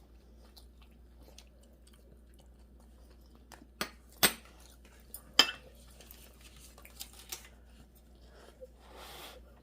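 Eating sounds: quiet chewing with a few sharp clicks of utensils against a dish, the loudest two about four and five and a half seconds in, and a soft rustle near the end.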